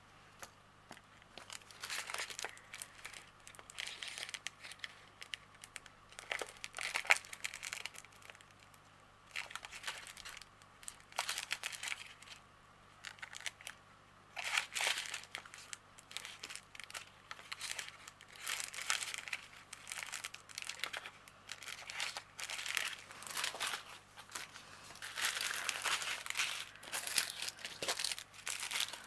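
Small plastic packets of diamond painting drills crinkling as they are handled and sorted, in irregular bursts with short pauses between.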